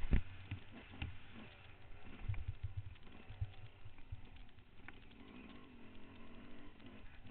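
Trail motorcycle riding over rough ground: a low engine note that rises and falls in pitch, with irregular knocks and thumps from bumps.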